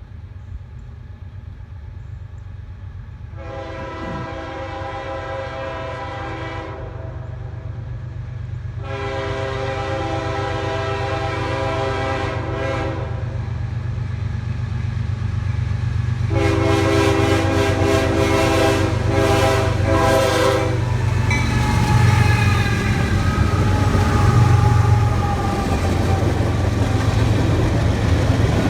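CSX freight train's diesel locomotive horn sounding three long blasts as the train approaches, the last one broken into shorter blows. Under it the locomotives' low engine rumble grows steadily louder as the train draws near.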